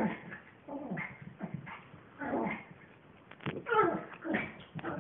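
A dog whining and yipping in play while play-fighting with a cat: a string of short, whiny calls, each falling in pitch, about seven in five seconds.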